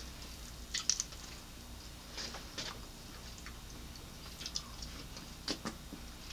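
Someone eating fried chicken wings close to the microphone: scattered small clicks and crackles from biting and chewing, over a faint steady hum.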